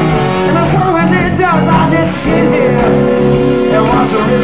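Live blues-rock band playing between sung lines, a lead guitar line bending up and down in pitch over a steady bass.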